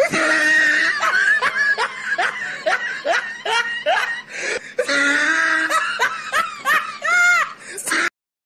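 People laughing hard in rapid, repeated bursts of laughter, stopping abruptly near the end.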